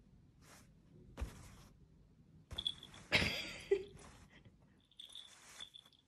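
Rustling of cloth and soft knocks as a cat paws at fabric on a person's lap, with a few short scuffles and the loudest rustle about three seconds in.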